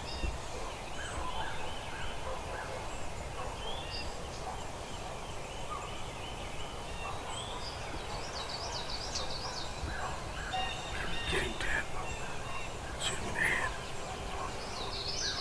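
Wild turkey gobbling, amid scattered chirps and trills of songbirds.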